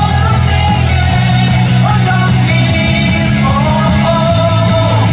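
Baseball cheer song playing loudly over the stadium speakers, with a steady bass line and the crowd singing along.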